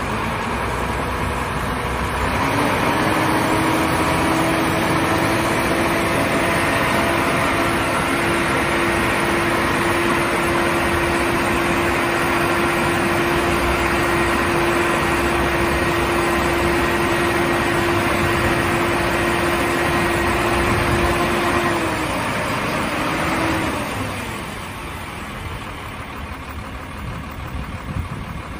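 Howo dump truck's diesel engine held at raised revs, with a steady whine, while it drives the hydraulic hoist that tips the dump body; the revs climb a couple of seconds in, then drop back to idle near the end as the lift stops.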